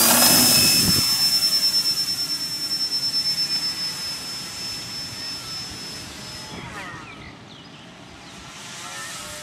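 The electric motor and propeller of a Multiplex FunCub RC plane at full throttle for takeoff. It climbs to a steady high whine that grows fainter as the plane climbs away, and the whine fades out about two-thirds of the way through.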